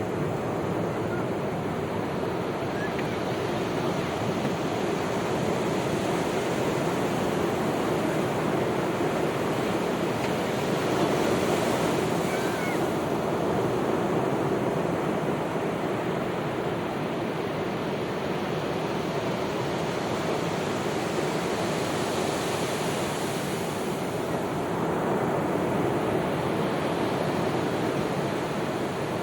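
Sea waves breaking and washing up a sandy beach, with a continuous surf wash that swells a little now and then.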